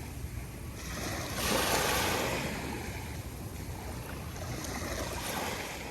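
Calm ocean waves washing onto the beach, one wave swelling up and breaking about one and a half seconds in, then a steady wash, with a low wind rumble on the microphone.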